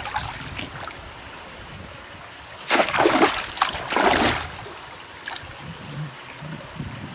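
Water splashing twice in quick succession over the steady low rush of a stream.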